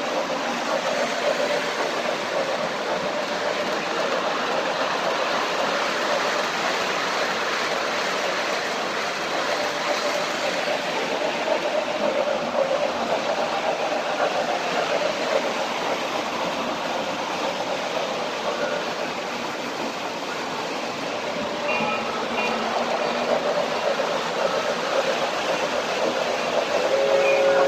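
O-gauge model trains running around the layout: a steady rumble of wheels rolling on three-rail track and the locomotives' motors. Right at the end a whistle starts to sound.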